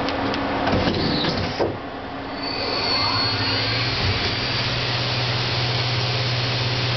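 1998 Daewoo Lynx 200B CNC turning center starting a program. Clicks and clunks come during the first second and a half, then the machine winds up with a rising whine about two and a half seconds in and settles into a steady running hum.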